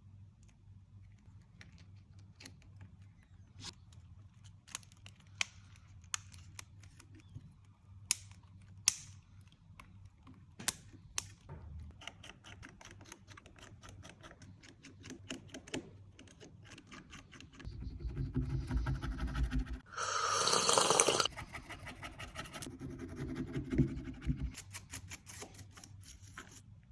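Sharp clicks and taps of small tools and parts on a smartphone under repair, scattered and irregular. Later there are a few seconds of low buzzing with a rattle, cut by a short loud burst of noise about two thirds of the way in.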